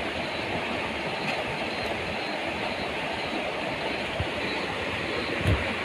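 Steady rush of flowing water over rocks in a stream, with a couple of low thumps near the end.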